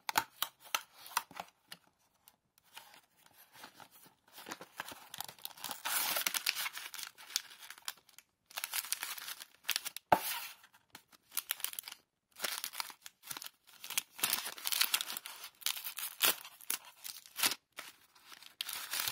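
A snack package being opened by hand: a cardboard box handled and opened, then its shiny plastic-film wrapper crinkling and tearing in several rustling spells, with one sharp knock about halfway through.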